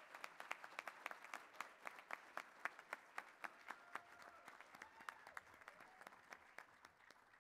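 Banquet audience applauding, a dense patter of many hands with individual claps standing out, cutting off suddenly at the end.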